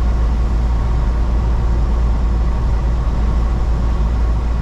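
Steady low rumble of a semi truck driving at road speed, engine and road noise heard from inside the cab.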